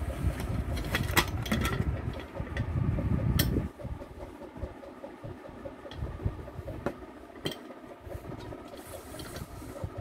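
Stainless steel pressure cooker lid being handled and lifted off its pot, giving a few light metallic clicks and knocks. Over the first three and a half seconds there is a low rumble of microphone handling noise, which then drops away.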